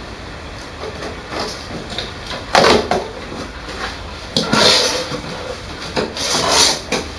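Cardboard box being handled and its flaps pulled open: several short scraping, rustling bursts, the loudest about two and a half seconds in.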